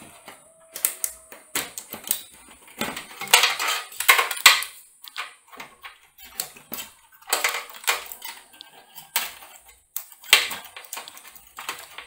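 Cable connectors being pulled out inside a desktop PC's metal case: irregular clicks and rattling of plastic plugs and cables against the metal, with the loudest clattering about three to five seconds in.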